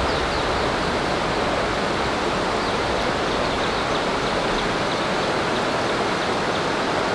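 Mountain stream rushing: a steady, even rush of water noise that does not change.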